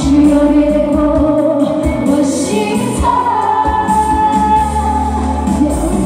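Women singing a Chinese pop song through microphones over amplified backing music, with long held, gliding notes above a steady bass line.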